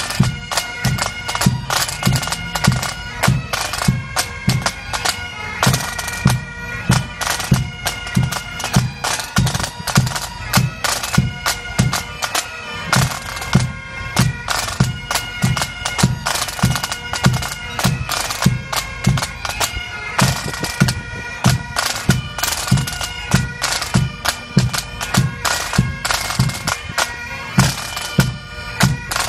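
A pipe band playing: Great Highland bagpipes sound a continuous tune over their steady drones, with snare and bass drums keeping a steady beat about twice a second.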